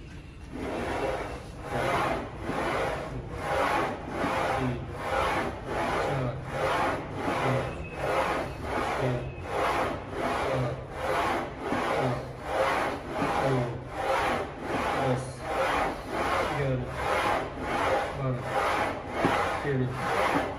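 Plate-loaded hack squat machine's sled sliding down and up its rails through a steady set of reps: a rasping stroke about every two-thirds of a second, with a low bump on every second stroke.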